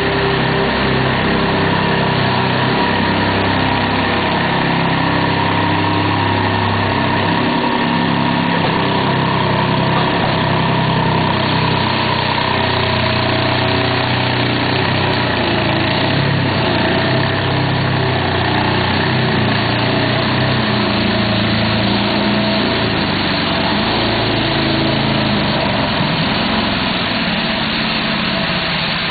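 Engine of a compact 3-in-1 farm machine, a cubicle bedding spreader, running steadily. Its pitch shifts a little over the first ten seconds or so, then it settles into an even drone with a noisier hiss on top.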